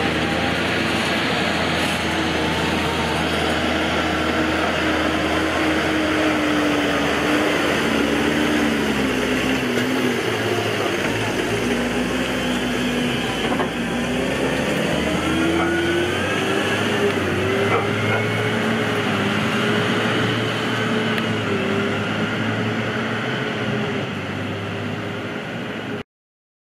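New Holland tractors' six-cylinder diesel engines running under load as the tractors pull loaded forage wagons past, the engine note rising and falling, with a higher whine climbing about halfway through. The sound cuts off abruptly near the end.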